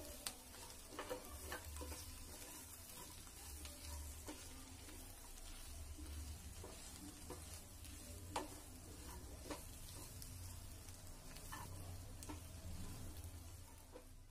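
Faint stirring of chopped chapati pieces and vegetables in a kadai with a spatula: light scraping and scattered taps against the pan, over a soft sizzle.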